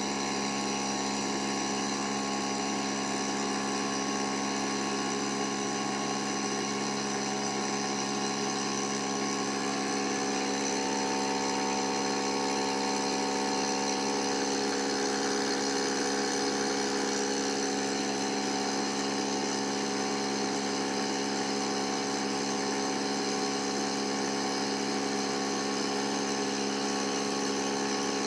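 Thermal barrier coating demonstrator rig running its heating cycle, with the gas burner flames lit and cooling air flowing through the specimens. It makes a steady machine hum of several steady tones over a hiss.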